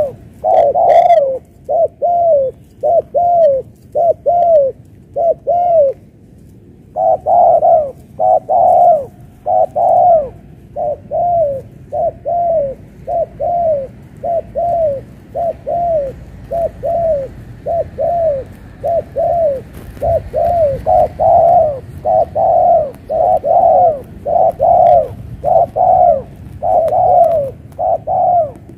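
Spotted dove cooing close by: a long run of short, downward-bending coos in quick succession, with a brief pause about six seconds in.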